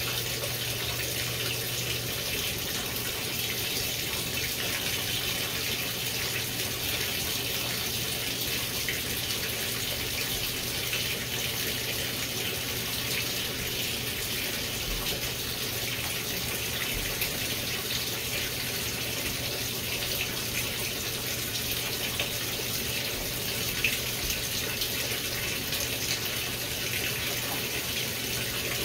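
Water running steadily into the tub of a GE GTW720BSN0WS top-load washer as it fills, an even rushing hiss. A low hum beneath it drops in level about two seconds in.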